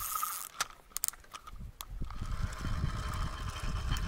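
Fishing reel being worked: a few separate clicks, then from about two seconds in a steady whirring of the reel being wound, with low wind rumble on the microphone.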